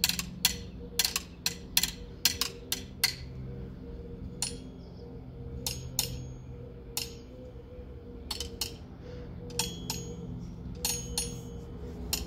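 Drumsticks tapping on the PVC pipes and fittings of a pool pump's plumbing. There is a quick run of light clicking taps for the first three seconds or so, then slower, scattered taps, some with a short high ring. A steady low hum runs underneath.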